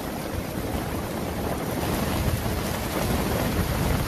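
Floodwater rushing through a street, a steady hiss of moving water, with wind buffeting the microphone in low gusts; the hiss grows fuller about two seconds in.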